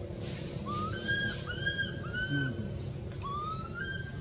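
Infant macaque crying: a run of short, high, whistle-like calls, each rising and then levelling off, four in quick succession, then one longer rising call about three seconds in.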